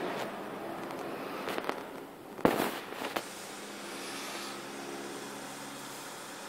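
A few sharp clicks and knocks inside a parked car's cabin, the loudest about two and a half seconds in, over a faint steady hum.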